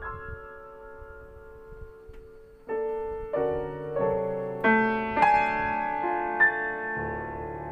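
Solo piano playing slow, pedalled contemporary classical music. A held chord fades away, then a little under three seconds in, chords and single notes enter one after another. Each is left ringing, so they pile up into a sustained cluster.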